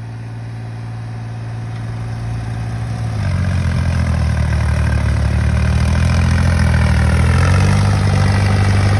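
New Holland tractor's diesel engine working under load, pulling a loaded sugarcane trolley through mud. It grows steadily louder as it comes closer and labours harder from about three seconds in.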